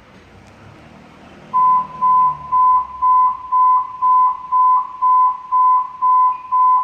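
Electronic beeper sounding a single high tone in even beeps about twice a second, starting about a second and a half in over a low background rumble.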